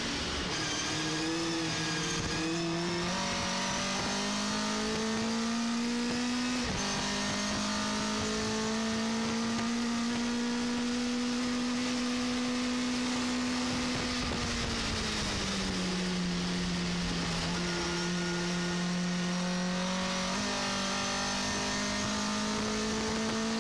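Vauxhall XE 2.0-litre sixteen-valve four-cylinder race engine in a racing pickup truck, heard from inside the cab under hard driving: the revs climb in steps early on as it goes up through the gears, hold high and steady for several seconds, drop as the driver lifts off past halfway, then rise again near the end as it accelerates.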